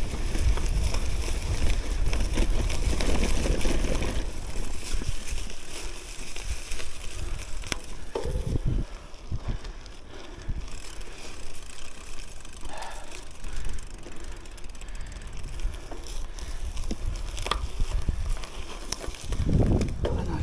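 Gravel bike riding over a grassy forest trail: steady tyre noise with scattered clicks and rattles from the bike. There is a heavy low rumble of wind on the microphone, strongest in the first few seconds and again near the end.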